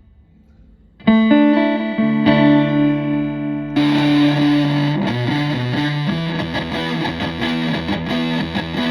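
Electric guitar played through a Tone Bender MKII fuzz pedal into a Twin Reverb-style valve amp: held, sustaining chords start about a second in. About four seconds in the tone turns brighter and grittier, and a busier fuzz riff follows.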